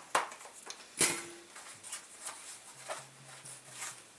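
A 24-inch buck saw and its homemade fabric blade guard being handled as the guard is pulled off the blade: two sharp clacks near the start and about a second in, then lighter clicks and rustling.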